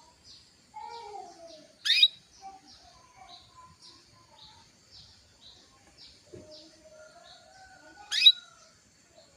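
Female canary in breeding condition calling for a male. Short high chirps repeat about twice a second, with two much louder, sharp calls about two seconds in and again near the end, and fainter lower, sliding calls in between.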